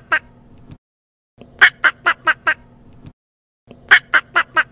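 Duck quacking in quick runs of about five quacks, each run loudest at its first quack, the runs coming about every two seconds.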